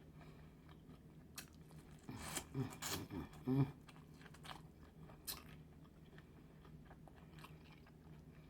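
A person chewing and smacking on food close to the microphone, with sharp wet mouth clicks. The chewing is loudest between about two and four seconds in.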